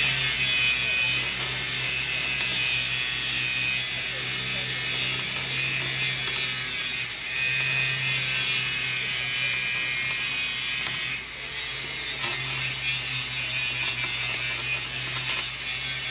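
A handheld power tool running steadily with a strong high hiss over a low motor hum, easing briefly about eleven seconds in.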